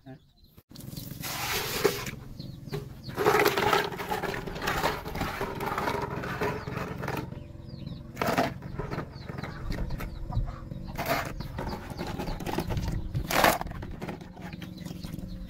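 Freshwater snails being handled: shells clicking and scraping against each other and the plastic as they are picked out of a bucket of water into a basin, with water sloshing and a few sharper clacks, over a steady low hum.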